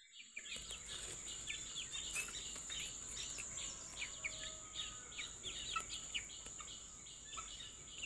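Birds chirping in many short, rapid calls, over a steady high-pitched insect whine.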